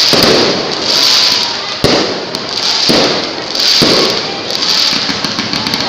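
Aerial fireworks bursting in quick succession, roughly one burst a second, each with a crackling tail. One sharper bang comes a little under two seconds in.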